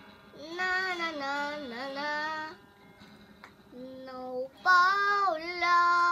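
A young girl singing in long held notes: one phrase, a short note about four seconds in, then a louder phrase near the end.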